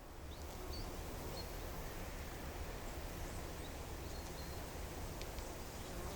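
Outdoor mountain ambience: a steady low rumble and hiss, with a few faint, short, high bird chirps scattered through. It fades in over the first second.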